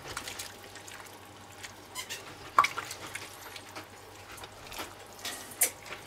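Wooden spatula stirring a chunky meat-and-vegetable stew in broth in a cast-iron Dutch oven: wet squelching and sloshing of the pieces, with scattered sharper knocks, the loudest about two and a half seconds in and again near the end.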